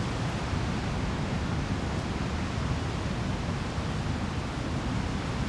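Steady, even rushing noise with no distinct events or tones in it.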